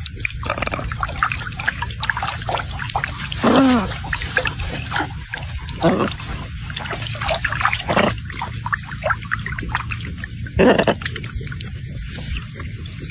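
A bird calling loudly four times at intervals of a few seconds, the first call sliding down in pitch, over a steady wash of water and many small clicks.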